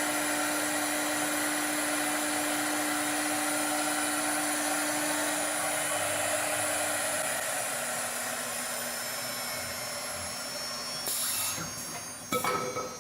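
Auto-feed CNC wood turning lathe running: a steady machine hiss with several held tones. About seven seconds in, a low tone stops and the sound eases off, followed by a few knocks near the end.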